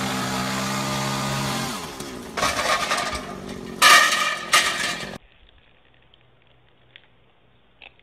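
A chainsaw runs at high speed and its pitch drops about two seconds in. Crashing and clattering follow as the cut limb and the ladder come down, loudest about four seconds in. The sound cuts off suddenly about five seconds in, leaving only faint background.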